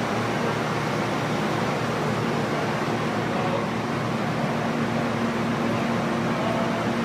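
Steady drone of a diesel pickup idling on a chassis dyno, heard from inside the cab over an even rushing noise; the engine is not revved.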